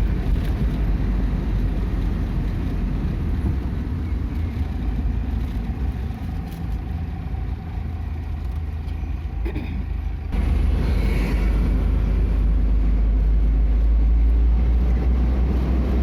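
Steady low rumble of a vehicle being driven, engine and road noise. It eases off somewhat in the middle and grows louder again suddenly about ten seconds in.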